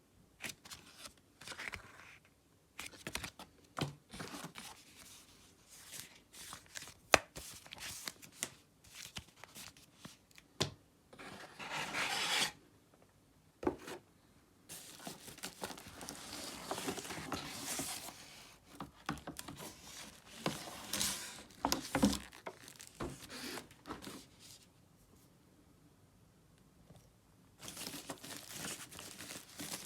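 Coffee machine packaging being unwrapped by hand: paper and plastic tearing and crinkling, with scattered clicks and knocks of cardboard and parts being handled. It pauses briefly a few seconds before the end.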